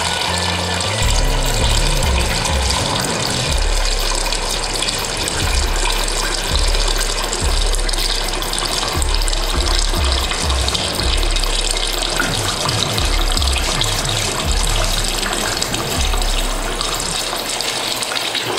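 Kitchen tap water pouring in a steady stream into a stainless steel stockpot, filling it over the stock ingredients. Background music with a pulsing bass line plays underneath.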